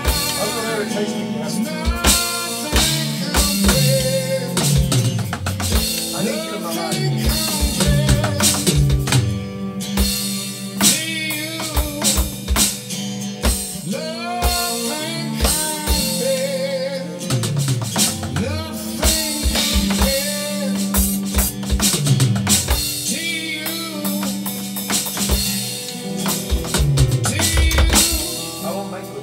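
A male voice singing an acoustic ballad over acoustic guitars and cello, with an overdubbed drum kit playing a steady beat.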